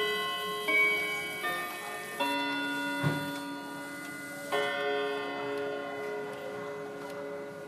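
Clock chime striking four ringing notes about three-quarters of a second apart, then a fifth note about two seconds later, each note ringing on and fading, over a faint tick.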